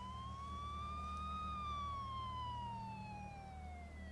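Police car siren wailing: one slow rise in pitch, then a long slow fall, over a steady low hum.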